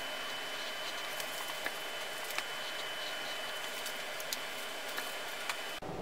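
Steady hiss with a faint high whine, and a few light ticks and scrapes of a small paintbrush working oil paint on canvas. The hiss changes abruptly near the end.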